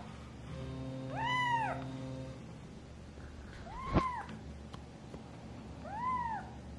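A very young kitten mewing three times, each mew a short, high call that rises and falls, about two seconds apart. A sharp click lands with the second mew.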